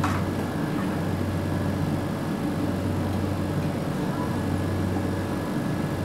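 Steady drone of a commercial kitchen's extractor hood fan, with a constant low hum underneath. A single short click right at the start.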